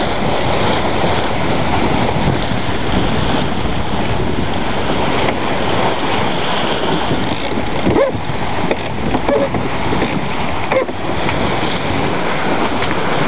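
Water rushing and splashing along the hull of a Mini Transat sailboat moving fast under spinnaker, with wind buffeting the microphone; a loud, steady rush with a few brief squeaks near the middle.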